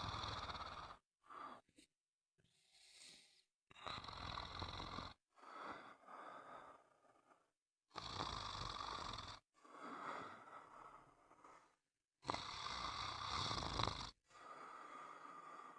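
A person snoring: a stronger snore about every four seconds, each followed by a softer breath, with short dead-silent gaps between them.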